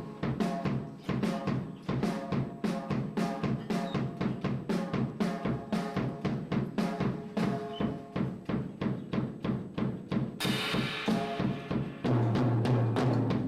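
A drum kit played in a steady beat of about three strokes a second, the drums ringing, with a cymbal-like crash about ten seconds in and a low booming drum tone near the end.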